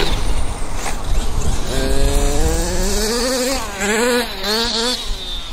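Radio-controlled trucks driving on grass, their motors whining up and down in pitch as they speed up and slow. A long rising whine starts about two seconds in, then the pitch wavers up and down.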